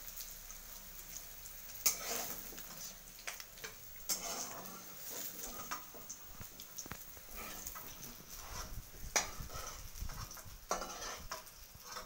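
Metal slotted spatula scraping and clinking against a steel kadai and plate as fried soybean chunks are lifted out, with oil sizzling in the pan. Sharp clinks come every few seconds over a steady hiss.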